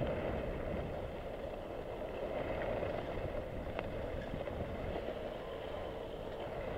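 Skis running over groomed, packed snow at speed, a steady scraping hiss mixed with wind noise on the camera's microphone, with one faint click near the middle.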